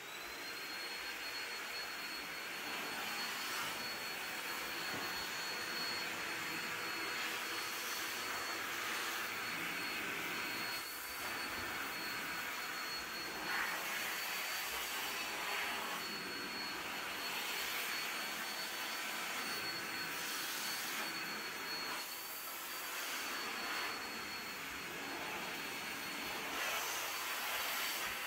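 Hoover commercial backpack vacuum running, its motor giving a steady high whine over a rush of air. The air noise rises and dips a little as the dusting brush is worked.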